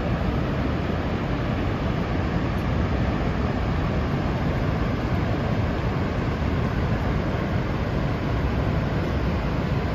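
Horseshoe Falls at Niagara: a steady, unbroken rush of a huge volume of falling water, heaviest in the low range.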